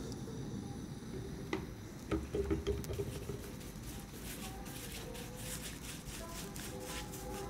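A wooden stick knocks a few times against a small metal pot. Then a brush makes quick repeated scratchy strokes on the wooden shell of a daf frame drum.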